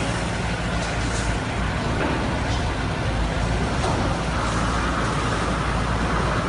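Doosan forklift's engine running steadily, holding the raised wall panel, with a few light clinks over it.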